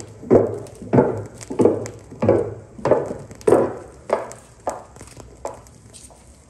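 Recorded footsteps from a stereo demonstration LP played back over loudspeakers: a steady walking pace of about one and a half steps a second, growing fainter near the end.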